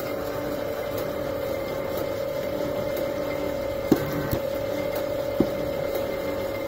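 Slotting head on a Pervmajska ALG-100c milling machine running, its cutter stroking up and down in the bore of a metal ring to cut a keyway. There is a steady motor hum with a held tone, and three sharp knocks come about four to five and a half seconds in.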